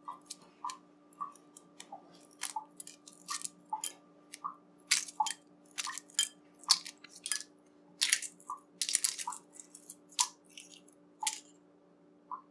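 Hard-boiled eggshell being cracked and peeled off by hand: irregular small crackles and clicks of breaking shell, a few to several a second.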